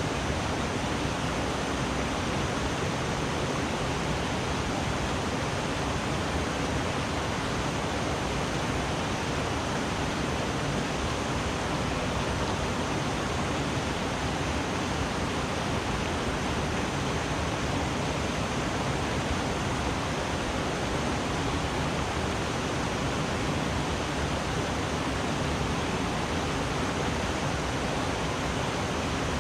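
Mountain stream rushing steadily: an even wash of water noise that does not change.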